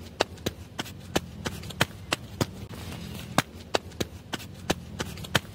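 Footstep sound effect for walking Lego minifigures: sharp, evenly spaced taps, about three a second.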